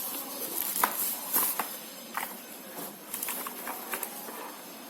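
Packaging being handled as a keyboard is unpacked: scattered rustles and light clicks and knocks of plastic and cardboard.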